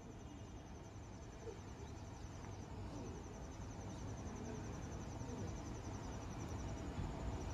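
A cricket chirping in a fast, high, pulsed trill that pauses briefly a few times. Beneath it a low rumble of outdoor background noise slowly grows louder.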